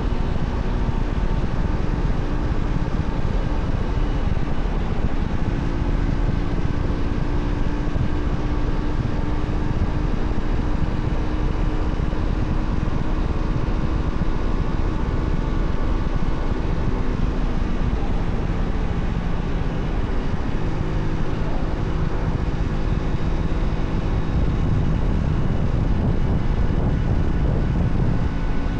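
Honda Shadow 125's small V-twin engine running steadily under way, heard from a camera microphone on the motorcycle. Its pitch shifts a little as the speed changes.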